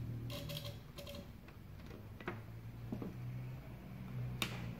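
A few separate sharp clicks and taps from hands working a soldering iron and wire against a TV mainboard, over a steady low hum. The loudest click comes near the end.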